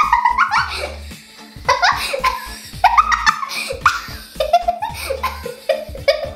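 A young girl laughing hard in repeated bursts, over background music.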